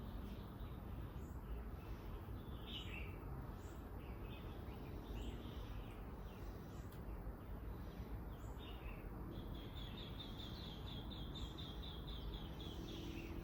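Small birds chirping and calling in short high notes, with one bird giving a fast, even trill of high notes for about three seconds near the end. A steady low background rumble runs underneath.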